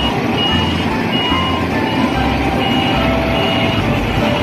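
Truck running with a reversing alarm beeping on and off over a low engine rumble.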